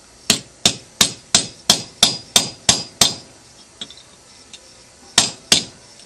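Claw hammer striking an AMP CrimpAce hammer-style crimp tool to crimp a battery terminal onto 1-gauge battery cable. Nine quick metal-on-metal blows come about three a second, then a pause, then two more blows near the end.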